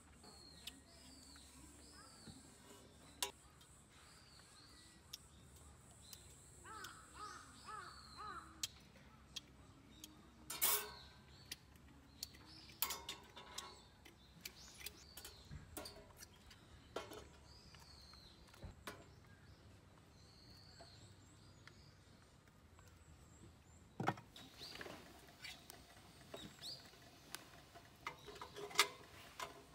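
Small birds chirping, with scattered sharp clicks and clinks of metal camp-cooking gear (tongs, knife and a steel grill grate) handled by a stove. The loudest is a clatter about ten seconds in, and a cluster of clicks comes near the end.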